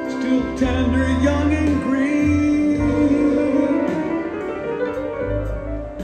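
Live rock band with strings and horns playing a slow instrumental passage of sustained chords over bass notes, with notes gliding up and down in the lead line.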